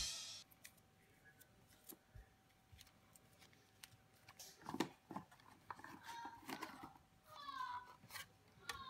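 Faint handling of paper leaflets and cardboard-and-plastic packaging: scattered light rustles and taps starting about halfway through, with a few short squeaky tones near the end.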